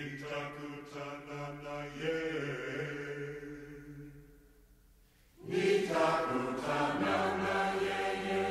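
A group of voices singing unaccompanied in held chords. The first phrase shifts pitch about two seconds in and fades away, and a new, louder phrase comes in about five and a half seconds in.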